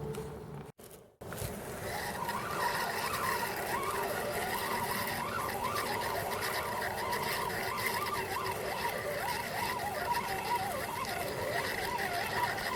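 A distant engine running, its pitch swinging up and down over and over, after a brief dropout in the sound about a second in.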